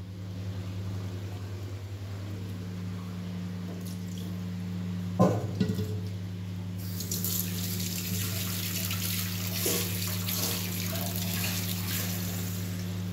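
Kitchen tap turned on about seven seconds in, water running with a steady hiss, after a single knock of a utensil about five seconds in, over a constant low hum.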